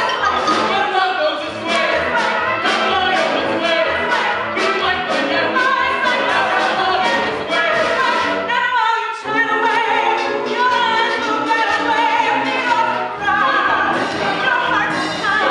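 Musical-theatre show tune: a chorus of singers with band accompaniment and a steady beat, with a short break about nine seconds in.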